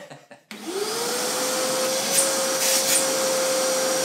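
Karcher WD3 wet-and-dry vacuum cleaner switched on about half a second in. Its motor rises in pitch as it spins up, then runs steadily at full suction.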